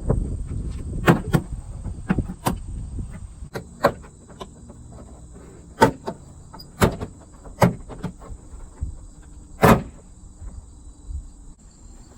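Plastic liftgate trim panel being pried loose: a series of about eight sharp plastic clicks and snaps at irregular intervals as the clips give, the loudest near the end, with low handling rumble in the first couple of seconds.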